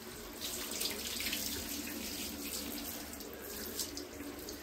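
Water spraying steadily from a handheld shower head onto a wet puppy's coat and splashing into a shower tray.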